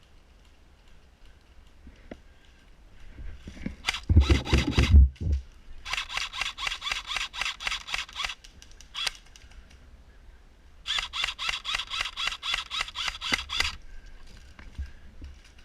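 Two bursts of full-auto fire from an airsoft electric gun, a fast even string of sharp clicks about nine a second, each burst two to three seconds long, the first about six seconds in and the second about eleven seconds in, with a single shot between them. About four seconds in there is a short, loud, rough rumbling noise.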